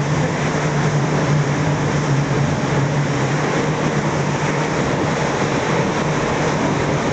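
Yamaha 70 hp outboard motor driving a launch at steady speed, a constant low drone with the rush of water and wind over it.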